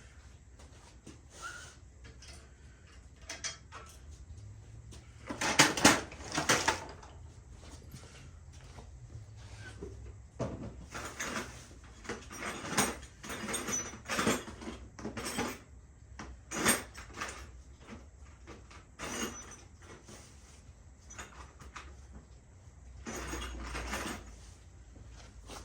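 Irregular clinks, knocks and rattles of small metal parts and tools being handled and rummaged through, as in a search for a washer. There is a louder pair of knocks about six seconds in and a busy run of clatter in the middle.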